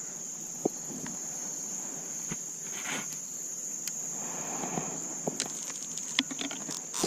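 Crickets or other insects trilling in a steady high-pitched drone, with scattered clicks and rustling that grow busier in the second half.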